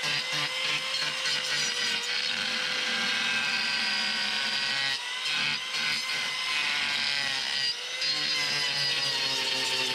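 Electric angle grinder running steadily, its disc grinding down a cow's hoof during hoof trimming: a high motor whine over a rasping grind. The grinding drops off briefly twice, about five and eight seconds in.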